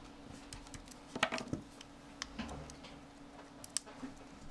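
Small scattered clicks and taps of a precision screwdriver and tiny metal parts against an iPhone 4's frame during reassembly, with a cluster of louder clicks about a second in and a sharp single click near the end.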